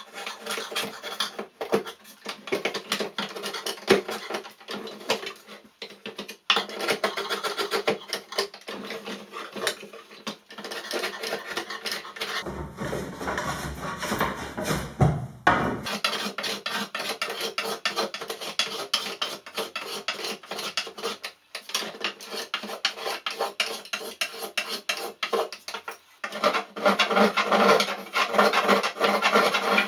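Hand plane and edge tools shaving a wooden canoe paddle in rapid, repeated scraping strokes, sped up threefold. A short stretch near the middle sounds deeper and different.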